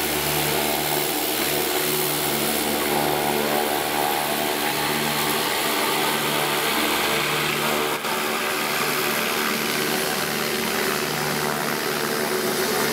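Fuji T-7 trainer's Allison 250 turboprop engine running steadily with its propeller turning, a continuous even engine and propeller sound.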